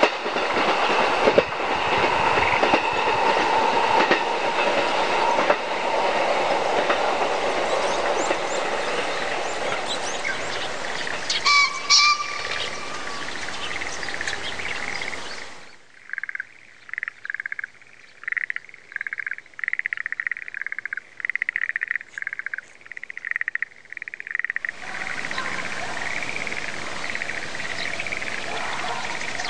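A JR Mito Line train passing over a level crossing, its wheels clattering over the rail joints, with a brief high tone about twelve seconds in. The train noise dies away about halfway through, leaving frogs calling in quick pulses.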